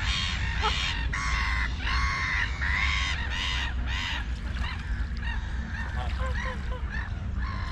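Domestic white geese honking: about five drawn-out honks in the first four seconds, then softer, shorter calls, over a steady low rumble.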